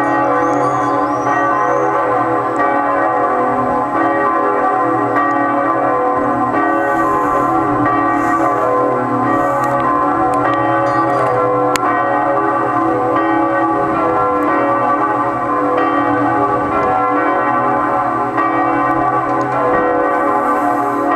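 Two large church bells of Bayeux Cathedral swinging in full peal (volée): "Marie" in C♯3 and "Jeanne-Frédérique" in B2, both cast by Havard of Villedieu in 1858. Their strokes overlap into a continuous, dense ringing at a steady, loud level.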